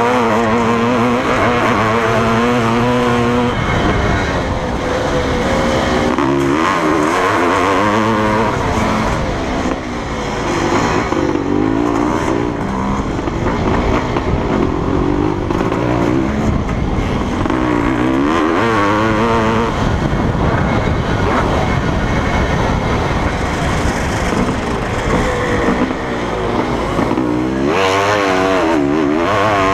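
Honda CR500 motocross bike's 491 cc two-stroke single-cylinder engine, heard from on the bike, revving up hard and falling off again and again as it is ridden around a dirt track.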